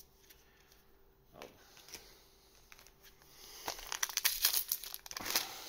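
Trading-card booster pack wrapper crinkling and rustling as it is handled, a dense run of crackles starting a little under four seconds in and lasting about two seconds.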